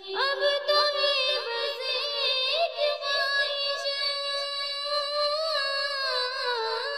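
A high voice singing a naat, drawing out long held notes with gliding ornaments in between.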